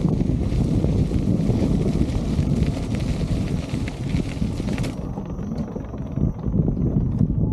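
Wind buffeting the microphone of a camera carried on a moving electric unicycle, a steady low rumble mixed with tyre noise on gravel. About five seconds in the high hiss drops away, and near the end a few sharp knocks come as the wheel rolls onto wooden boardwalk planks.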